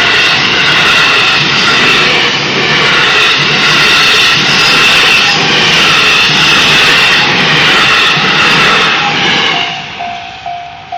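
JR West 223 series 2000-subseries Special Rapid Service electric train passing over a level crossing at speed, a loud steady rush of wheel and running noise. Near the end the train noise drops away, leaving the level-crossing warning bell ringing in a steady repeated ding.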